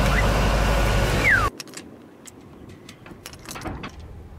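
Sailboat's engine running steadily under way, with a short falling whistle near its end. About a second and a half in it gives way abruptly to a quiet calm with scattered light clicks and taps.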